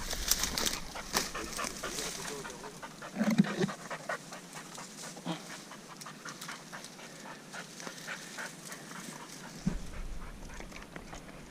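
A pointing dog panting as it searches for a downed bird, with many faint scattered clicks.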